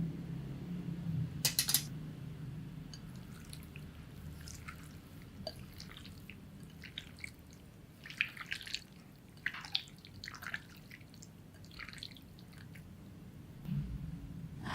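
Food frying on an electric hot plate: scattered small pops and crackles of spattering oil over a low steady hum, with a sharp click about a second and a half in and another at the end.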